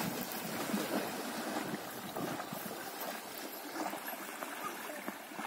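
River water splashing and lapping in an irregular patter.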